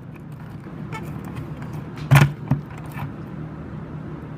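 Handling noise: small clicks and rattles, with one sharp knock about two seconds in and a lighter one just after, over a steady low hum.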